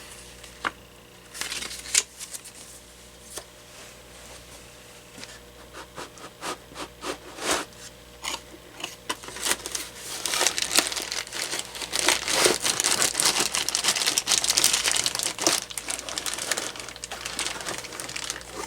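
Cardboard box packaging being handled: scattered light knocks and rustles at first, then steady, dense crinkling through the second half as the packing is pulled apart.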